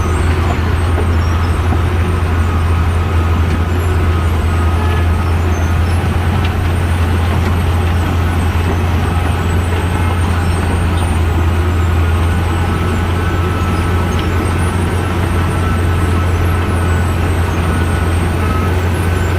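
Asphalt milling machine running steadily: a constant deep engine drone with a faint high whine over it.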